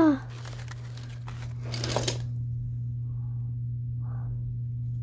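Brief rustling and handling noises in the first two seconds, then a couple of faint soft sounds, all over a steady low hum.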